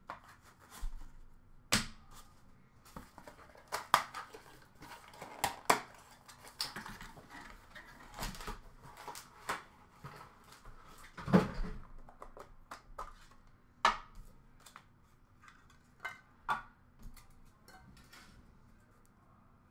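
Hands unboxing a trading-card box: cardboard packaging and hard plastic card cases handled, opened and set down, with scattered irregular clicks, taps and rustles. The loudest knock comes about eleven seconds in.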